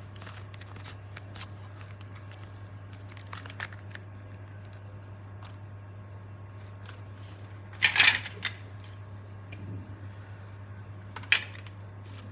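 Small objects being handled: faint scattered clicks, then a loud clattering burst about eight seconds in and one more sharp click near the end, over a steady low hum.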